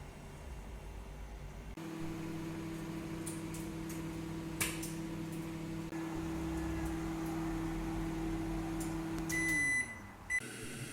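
A small appliance motor hums steadily, with a single sharp click partway through; near the end the hum winds down in pitch and a high electronic beep sounds, then a second short beep.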